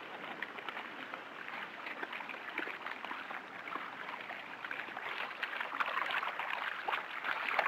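Canoe paddles working the water: steady splashing and gurgling that grows a little louder toward the end.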